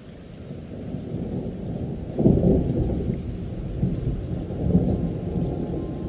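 Low rumbling noise fading in, with a louder swell about two seconds in and smaller ones later.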